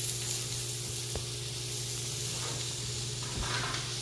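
Asparagus sizzling softly in a skillet on a portable gas burner, over a steady low hum. Near the end the sound swells briefly as the skillet is lifted off the burner.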